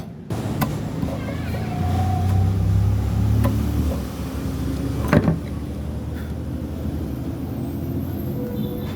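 Low, steady engine-like rumble, strongest about two to four seconds in, with a few sharp knocks over it, the loudest about five seconds in.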